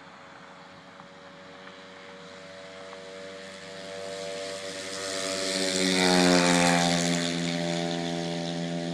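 Engine of an XL120 vehicle approaching and passing at speed in a fly-by: it grows from faint to loudest about six seconds in, drops in pitch as it goes past, and then carries on loud as it moves away.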